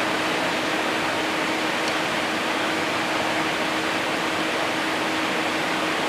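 Steady hum and hiss of mattress-production machinery, with one constant mid-pitched tone and no distinct stitching rhythm.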